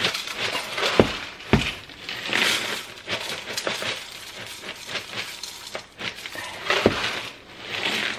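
Dry cereal rattling out of the box into a bowl, with a few sharp knocks of dishes on the counter, two about a second in and one near the end.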